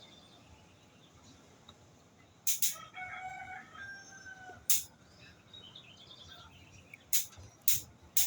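A rooster crowing once, a long call starting about three seconds in, with a few short sharp clicks or knocks scattered around it.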